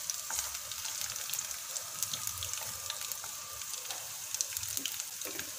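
Sliced garlic and curry leaves frying in hot coconut oil in a wok: a steady sizzle with small scattered crackles.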